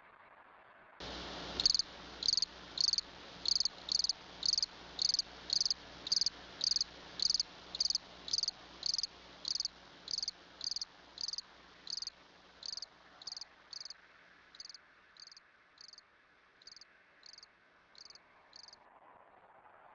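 A cricket chirping in a steady rhythm, about two chirps a second, growing fainter and more spaced out until it stops near the end.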